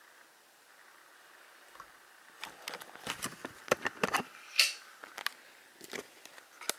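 Clicks, rattles and knocks of a glass terrarium's metal screen lid being handled and opened. The sounds come as a busy cluster in the middle, followed by a few single clicks.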